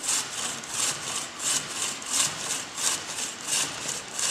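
Hand-held metal frame saw cutting a sheet of lapis specularis (crystalline gypsum) on a wooden workbench, with a steady rhythm of rasping back-and-forth strokes, about three a second.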